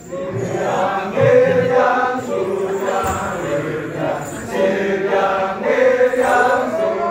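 A group of men chanting together in a Balinese kecak dance, many voices in unison holding sung notes that rise and fall.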